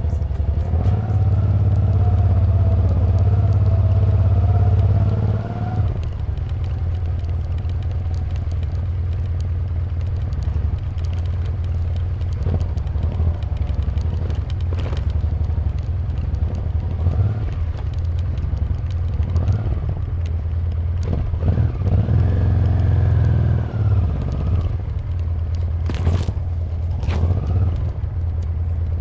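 Honda Transalp XL700V's V-twin engine running as the motorcycle is ridden along a rough forest track, pulling harder for the first few seconds and easing off about six seconds in, then swelling again a little past twenty seconds. A few sharp knocks near the end.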